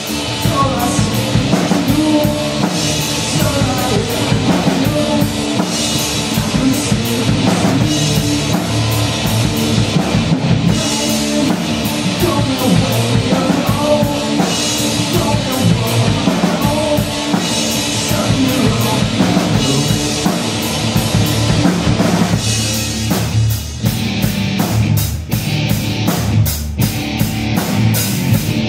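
Live punk rock band playing loud: distorted electric guitar and a drum kit, with a voice singing at times. About two-thirds in the music thins to a steady, evenly spaced drum beat.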